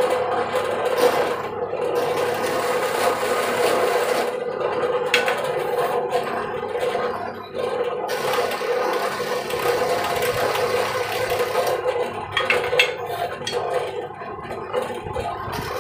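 Small bench drill press running steadily with a constant motor hum while its thin bit bores and scrapes into a block of red angsana (sono kembang) hardwood.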